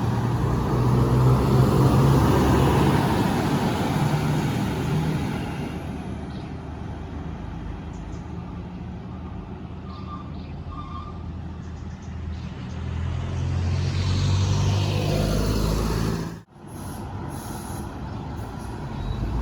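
Large buses passing on a road: engine and tyre noise swells and fades over the first few seconds, a second vehicle passes about thirteen to sixteen seconds in, and the sound breaks off abruptly for a moment soon after.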